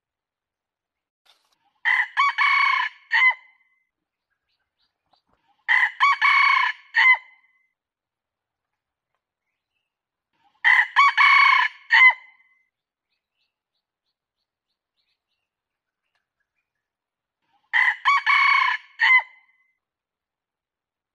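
Red junglefowl rooster crowing four times at uneven gaps of several seconds, each crow about a second and a half long and ending in a short separate final note. It is a recorded lure call used to draw wild junglefowl.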